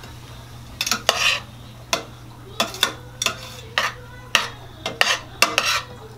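A spoon stirring vegetables in a stainless steel stockpot, clinking and scraping against the pot about a dozen times at an uneven pace, a couple of strokes a second.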